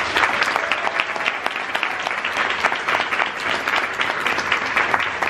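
Audience applauding: many people clapping steadily in welcome as the speakers are introduced.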